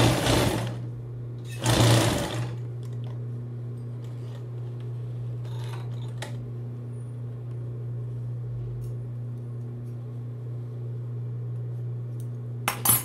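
Industrial sewing machine stitching a patch into denim jeans in two short runs near the start and a brief run near the end, its motor humming steadily in between.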